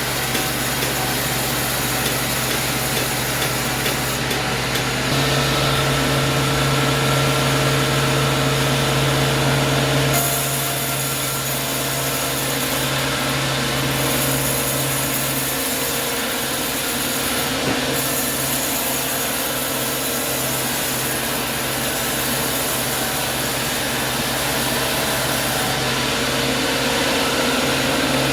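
Sawmill saw running and cutting wood, a steady machine hum with hiss, the pitch shifting about five seconds in and again about ten seconds in.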